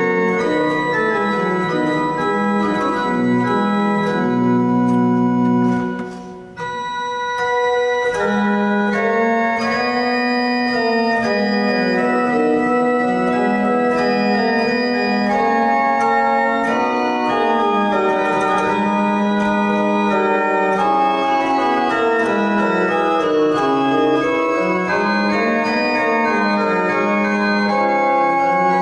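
Historic Bonifazi pipe organ playing sustained chords under moving melodic lines. About six and a half seconds in, a brief break lets the sound die away, then the playing resumes.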